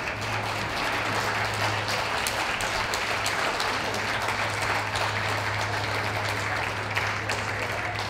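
Audience applauding steadily, a dense patter of many hands clapping, over a low steady hum.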